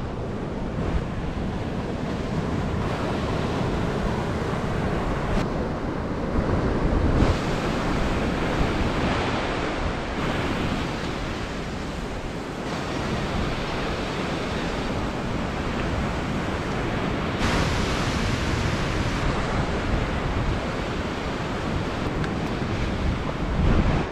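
Ocean surf breaking and washing up a sandy beach, with wind buffeting the microphone. The sound shifts abruptly several times.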